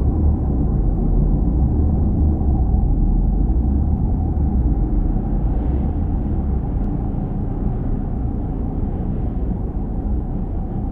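A deep, steady rumbling drone with a faint thin tone held above it, easing slightly about halfway through. It is an artificial sound made by layering several sounds to imitate the planetary electromagnetic 'planet sounds' from space probes.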